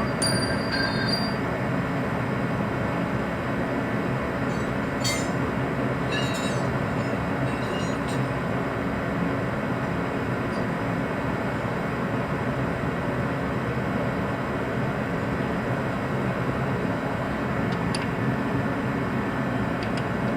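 A steady, even drone of background machine-like noise throughout, with a few faint metallic clinks, typical of tools on metal, about five to eight seconds in.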